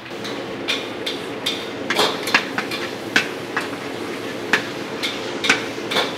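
Ground garlic sizzling in hot oil in a large metal wok, the sizzle starting as the garlic goes in, with irregular clanks and scrapes of a metal spatula against the wok as it is stirred.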